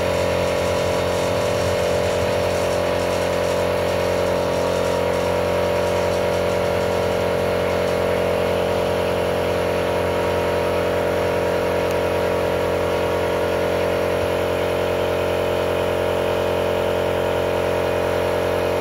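A motor or engine running steadily, a constant hum whose pitch holds level throughout.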